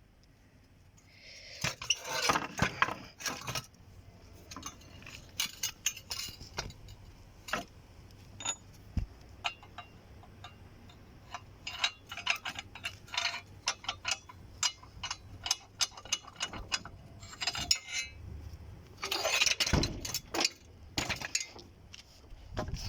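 Metal parts clinking and rattling as they are handled: a burst of clattering near the start, scattered single clinks, and another run of clattering near the end.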